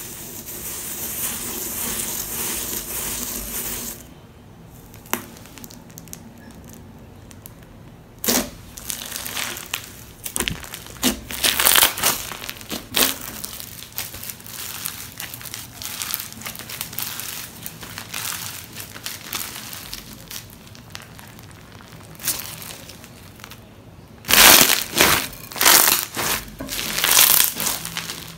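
Crunchy slime full of slushie beads being kneaded and squeezed by hand. It opens with about four seconds of steady hissing rustle, then gives irregular crackles and pops, loudest in a quick run of squeezes near the end.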